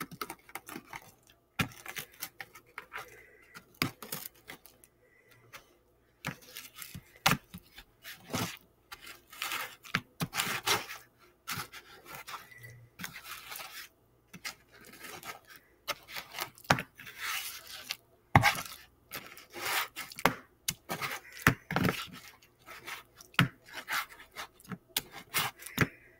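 A hand potato masher crushing milk-soaked Oreo cookies in a bowl: repeated wet squelching strokes with clicks of the masher against the bowl, at an uneven pace of about one to two strokes a second.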